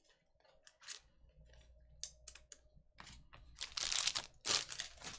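Foil trading-card pack wrappers crinkling and tearing as they are handled, with a few light clicks at first and louder rustling bursts near the end.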